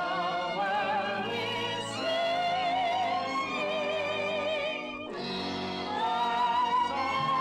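Old 1942 shortwave radio recording of a vintage popular-song arrangement with orchestra, carried by a high melody with heavy vibrato. The music breaks briefly about five seconds in, then resumes.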